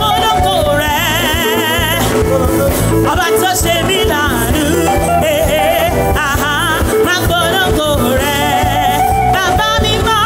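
Upbeat church praise music: singing voices with strong vibrato over a band with a steady, pulsing bass.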